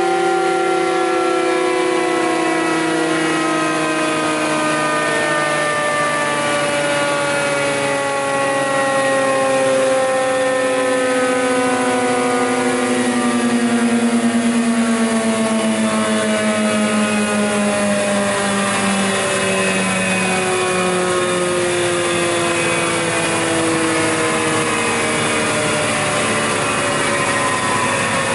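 TOS Svitavy F2T-80 double-sided planer coasting down after being switched off at its stop button: its two cutterheads spin down with a whine of several tones that falls slowly and steadily in pitch.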